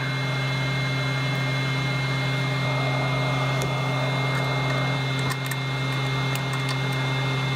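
Hot air rework gun's fan blowing steadily in its cool-down, an even whirring hum with a strong low drone. A few faint ticks of small parts being handled sound over it.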